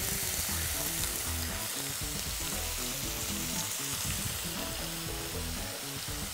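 Thin slices of beef sizzling steadily as they are sautéed in a hot pan, seared briefly on each side.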